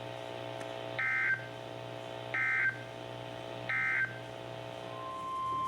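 EAS SAME digital data bursts marking the end of the message: three short raspy electronic chirps about a second and a half apart. A steady single-pitch alert tone begins near the end, over a faint low hum.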